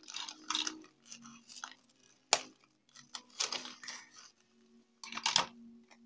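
Plastic wrap crinkling and rustling in bursts as a small cardboard box is handled and the wrap is cut open with scissors. A single sharp click a little past two seconds in is the loudest sound.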